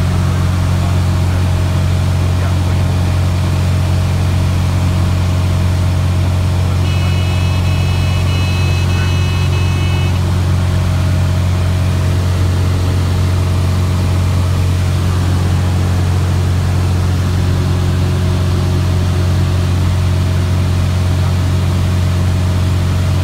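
Cessna O-2A's rear engine running steadily on its own with the front propeller feathered, a loud, even drone with airflow noise heard inside the cockpit. About seven seconds in, a high steady tone sounds for about three seconds.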